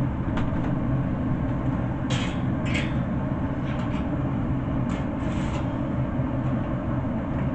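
Steady low hum and rumble of a Z Grills pellet smoker running while it heats up, with a few brief rustles and clicks on top.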